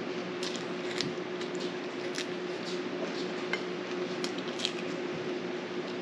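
Eating at a table: wet chewing and small clicks and clinks of a meal being eaten from a plate, scattered irregularly, over a steady hum.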